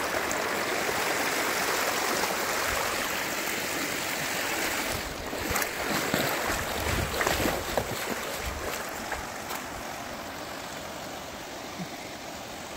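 Shallow rocky stream running steadily over stones, with a few splashes and knocks around the middle as stones are lifted and set down in the water.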